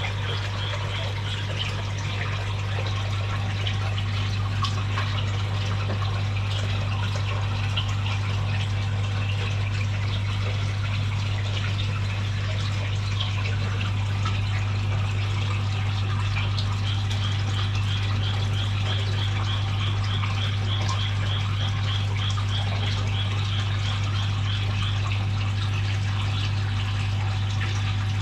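Koi aquarium's water pump and filter running: a steady low hum with water splashing and trickling into the tank. A high, quick chirping at about three chirps a second comes in near the start and again through the second half.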